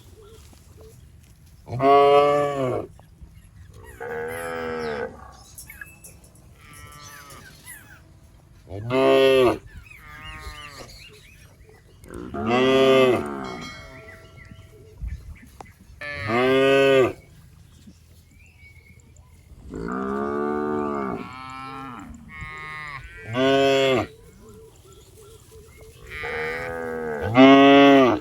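Cows mooing again and again, about ten drawn-out calls of a second or so each, some loud and close, others fainter.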